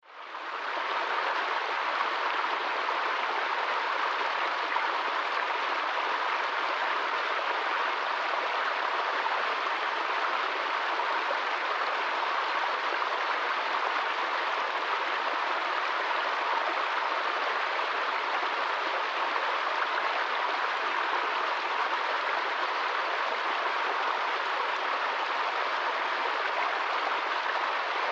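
Small forest stream running over rocks in a little cascade: a steady rush and splash of water, fading in over the first second.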